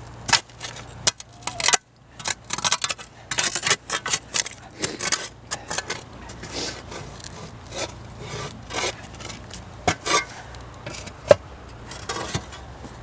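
Hand digging in dump soil: irregular scraping and rasping strokes through dirt and debris, thickest in the first half, with a single sharp click about eleven seconds in.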